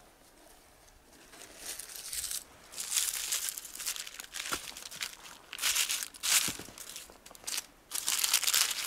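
Dry twigs, brushwood and birch bark rustling and crackling as they are pushed by hand into the gaps between three upright log poles, in irregular bursts starting about a second and a half in.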